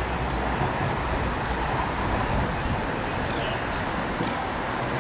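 Steady rumble of road traffic, even and unbroken.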